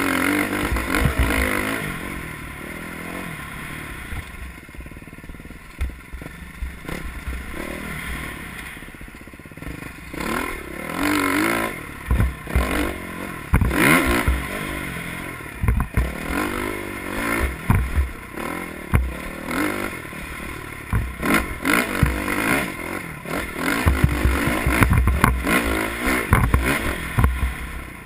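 Dirt bike engine heard from on board, revving up and down over and over as it climbs through sand and rocks. Short knocks and clatter come from the bike over rough ground.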